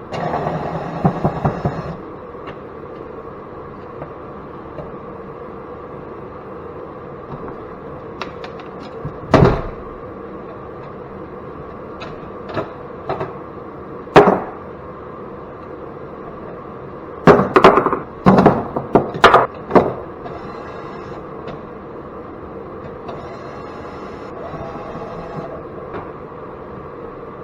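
Sharp knocks and clunks of metal parts being handled and pried apart while a light fixture is dismantled: a rattle at the start, two single knocks, then a quick run of four or five about two-thirds of the way through. Under them runs the steady hum of a shop space heater.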